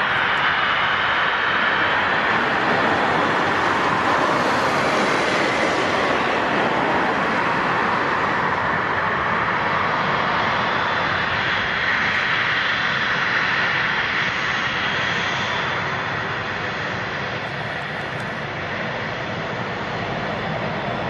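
Jet engines of an Airbus A330 freighter running at low taxi power: a steady rush of engine noise that eases slightly in the second half.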